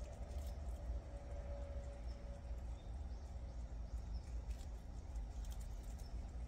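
Two prairie dogs gnawing and chewing raw supersweet corn kernels off the cob, giving small irregular crunchy clicks, over a steady low hum.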